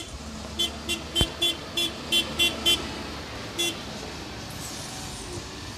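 A quick run of short high-pitched beeps, about ten in two seconds and one more a second later, over a steady low engine hum.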